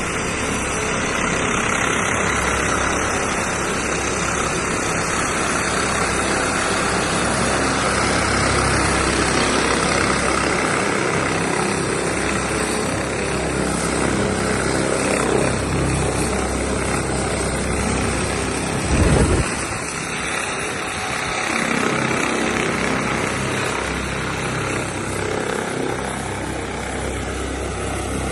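Rescue helicopter's rotor and turbine engines running steadily during a winch recovery. A brief, louder low blast comes about two-thirds of the way through.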